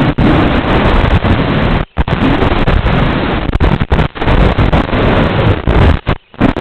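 The FPV racing quadcopter's analog video-link audio: a loud, rough rush of propeller and wind noise with static, its pitch rising and falling, dropping out briefly about two seconds in and again near the end.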